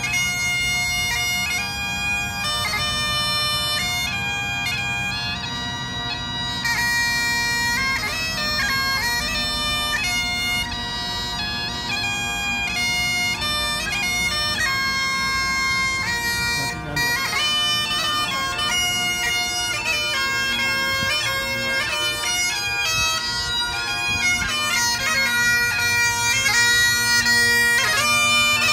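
Highland bagpipes played solo: the steady drones sound under a stepping chanter melody, growing a little louder near the end.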